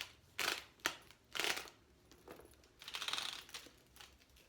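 Handling noise from a leather handbag with a metal chain strap: a few short rustles and a sharp metallic click.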